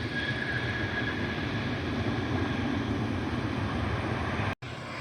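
Jet airliner engines heard as a steady rumble with a faint high whine, briefly cut off about four and a half seconds in.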